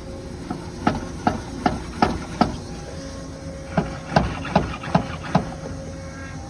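Sharp knocks as a car's front wheel is rocked by hand on its suspension: two runs of five knocks, about two and a half a second.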